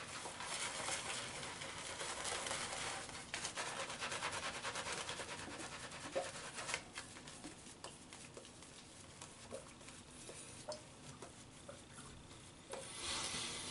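Shaving brush working soap lather onto a stubbled face: a faint wet swishing and crackling of bristles on lather and skin. It is busier for the first several seconds, then softer, and picks up again near the end.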